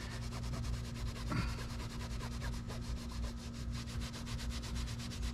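Microfiber towel rubbed back and forth over a fabric-covered sun visor, a steady scrubbing, as a cleaner works stains out of the cloth. A faint steady hum runs underneath.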